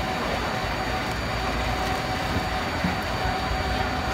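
Steady background din of a busy night-market stall: indistinct crowd chatter over a constant low mechanical hum.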